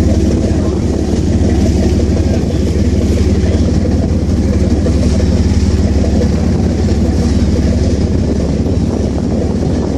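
Boat engine running steadily, a constant low hum with no change in speed.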